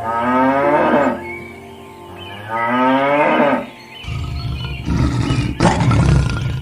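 Cattle mooing: two long calls over soft background music. From about four seconds in, a rougher, noisier sound with a deep low rumble takes over.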